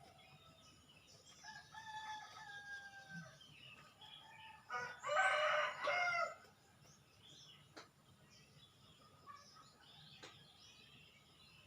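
Two rooster crows: a fainter one about a second and a half in, and a louder one about five seconds in. Small birds chirp faintly between and after them.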